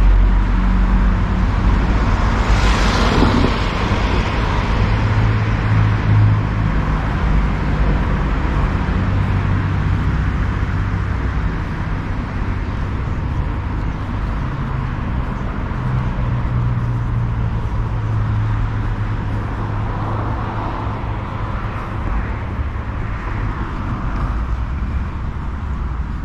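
A motor vehicle engine running steadily with road noise, its low hum shifting slightly in pitch.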